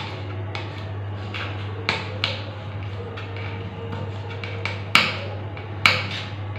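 Kitchen knife knocking on a cutting board as green chilies are cut: sharp knocks at uneven intervals, the two loudest near the end, over a steady low hum.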